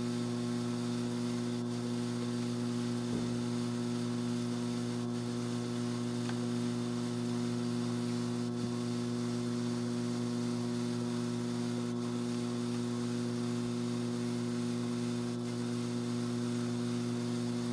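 Strauch Mad Batt'r XL electric drum carder's motor running at slow speed, giving a steady, even hum with a few faint clicks of fibre being handled.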